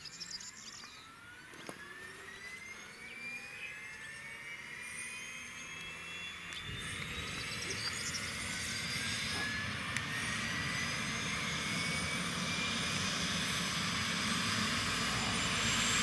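BK 117 helicopter's turbine engine starting up: a whine that rises steadily in pitch and grows louder throughout. A low rumble joins about seven seconds in.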